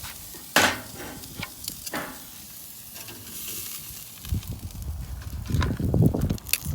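Meat sizzling on a grill, with a few sharp clacks in the first two seconds as the pieces are taken off. From about four seconds in, a low, uneven rumble joins it and becomes the loudest sound.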